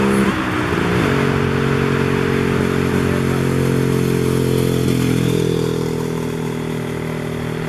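Vintage scooter's engine running hard at steady revs as it climbs and passes close by. Its pitch drops once about a second in, then holds steady.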